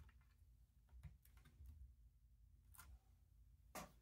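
Faint clicks and taps of plastic Lego bricks as a built Lego helmet model is handled and turned in the hands: about four scattered clicks, the sharpest near the end, over a low room hum.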